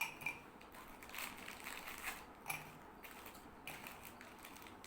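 Irregular crackling and crunching of biscuits and their packets being handled, with scattered clicks.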